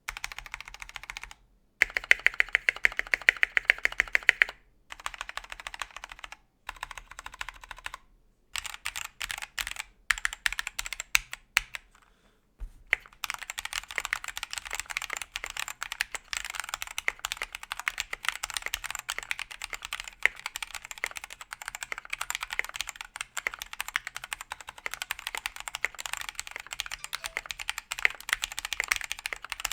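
GamaKay K77 hotswap mechanical keyboard being typed on, with foam padding inside and its stabilizers greased with dielectric grease. Several short bursts of rapid key clacks break off into brief silences, then give way to steady fast typing for the second half.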